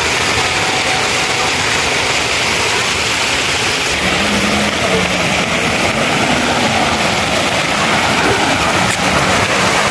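Fountain water jets spraying and splashing into the basin close up, a loud, steady rushing noise. From about four seconds in, faint low tones sound underneath.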